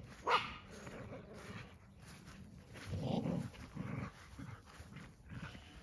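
Dogs play-fighting: one sharp yip about a third of a second in, then low growling around the middle.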